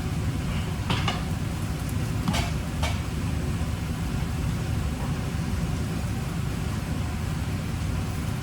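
A steady low rumble with three light clinks, like kitchenware being handled, about one, two and a half, and three seconds in.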